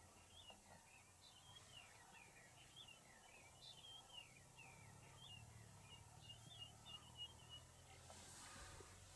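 Faint birdsong: many short chirps and twittering notes, one after another, over a low steady hum, with a brief rustle near the end.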